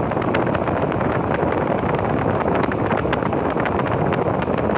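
Train carriage running in motion: a steady loud rumble of wheels on rail, peppered with many irregular clicks and rattles.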